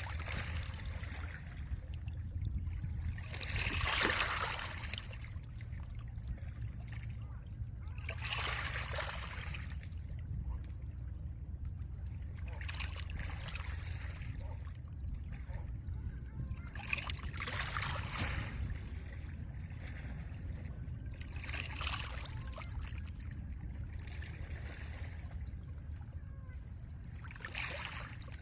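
Small lake waves washing onto a pebble shore. Each wave is a brief hiss, about every four to five seconds, over a steady low rumble of wind.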